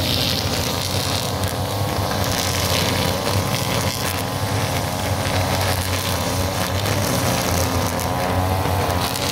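Backpack brush cutters running steadily, their nylon trimmer line cutting grass; the engine note wavers slightly as the operators work.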